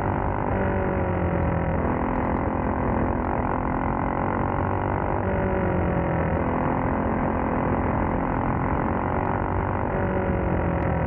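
Racing kart engine running hard on track, its pitch climbing and dropping every few seconds as the revs rise on the straights and fall into the corners.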